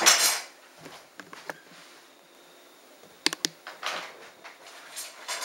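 Carbon arrow shafts set down on a wooden table, with a brief rustle at the start, then light clicks and taps and soft scuffs as the shafts and small parts are handled.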